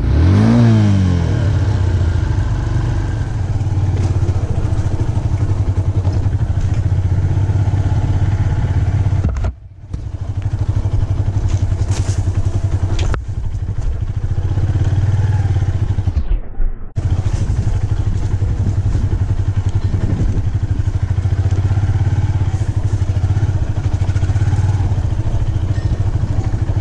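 Motorcycle engine running under way on a rough dirt track, revving up at the start. The sound cuts out briefly twice, about ten seconds and about sixteen seconds in.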